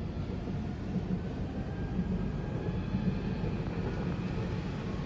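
Steady low rumbling background noise, without any sharp bangs.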